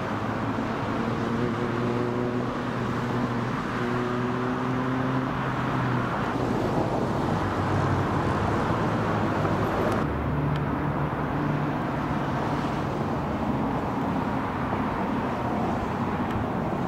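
Road traffic: motor vehicle engines running nearby over a steady wash of road noise, the engine hum shifting in pitch as vehicles pass.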